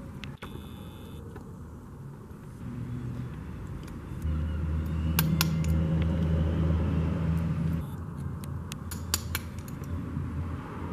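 A vehicle engine running with a low, steady hum, loudest from about four to eight seconds in. A few light metallic clicks come from a spark plug being handled against a gap gauge.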